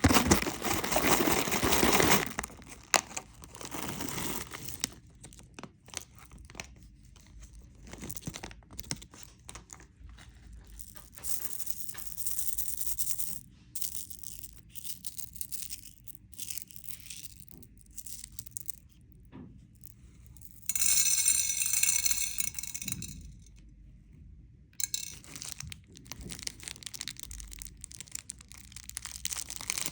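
Plastic candy wrappers crinkling and tearing in bursts with quiet gaps between them. The loudest handling comes at the very start and again about two thirds of the way through.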